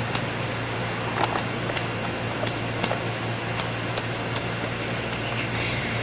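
Steady low hum and hiss, with a few faint clicks and rustles of bedding being handled.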